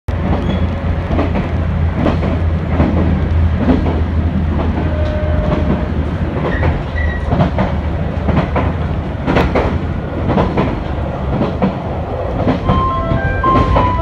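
JR Shikoku 2000 series diesel railcar heard from inside the carriage, running at speed: a steady low rumble with the wheels clacking over rail joints. Near the end a short electronic chime melody starts, the onboard chime that comes before the arrival announcement.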